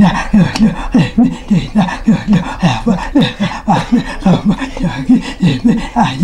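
A voice chanting short syllables in a quick, even rhythm, about three a second, each syllable falling in pitch, with no recognisable words.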